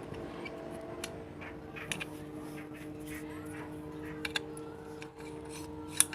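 Steady hum with a few sharp clicks: one about two seconds in, a quick pair past four seconds, and the loudest, sharpest click just before the end.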